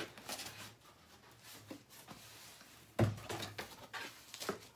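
Cardboard box flaps and stiff packing paper being handled and pulled aside: irregular rustling and scraping, with a louder knock or thump about three seconds in.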